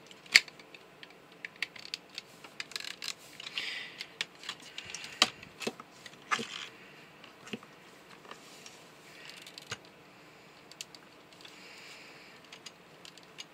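Hard plastic parts of a Transformers Studio Series Long Haul figure clicking and tapping as they are moved and pressed into place, irregular sharp clicks with a few soft rustles of handling; the sharpest click comes about half a second in.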